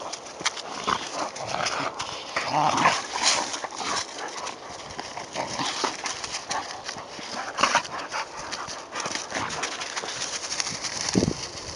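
Two dogs, a Labrador and a Doberman, play-wrestling in snow: irregular scuffling, quick crunching footfalls and short dog noises.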